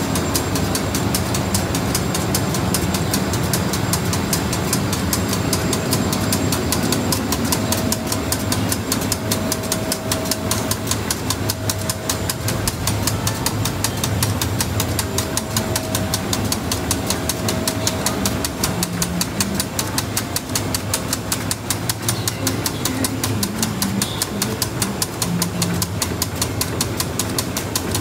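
Gravure printing machinery running steadily: a low mechanical drone with a fast, even ticking over it. A faint whine comes and goes through the middle.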